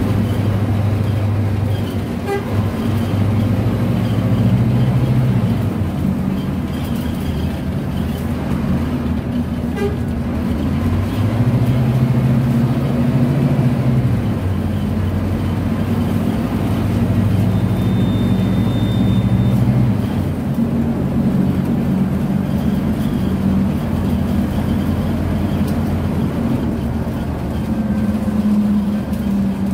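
Scania DC09 five-cylinder diesel of a Scania K250UB city bus heard from inside the cabin while driving, its note climbing and dropping back several times. A thin, high steady tone sounds for about two seconds midway.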